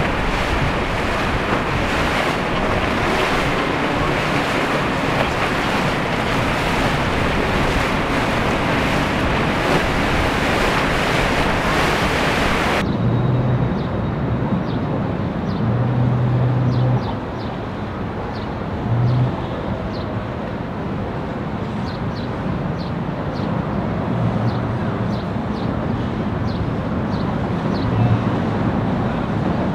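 Steady rush of wind and breaking surf. About thirteen seconds in it changes abruptly to a duller rush with a few short low hums.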